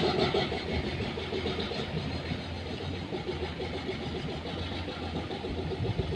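Engine of heavy construction machinery running steadily, with a short louder surge at the very start.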